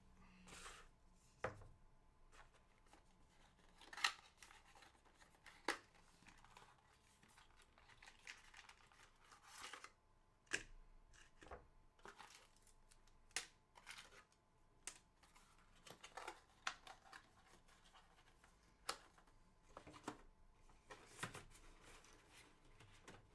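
Cardboard fan box and its packaging being handled: scattered short taps, clicks and rustles as the box is opened and the fan, its mounting pieces and small plastic bags of screws are taken out, the sharpest tap about four seconds in.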